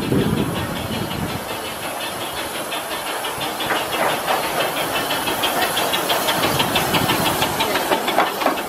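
15-inch gauge steam locomotive River Irt rolling slowly past at close range, its steam hissing steadily with a fast, even pulsing.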